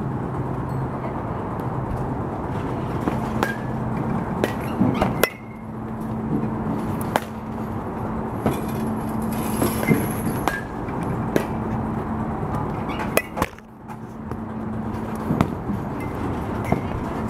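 Baseball bat hitting pitched balls, sharp cracks every few seconds, over a steady low machine hum.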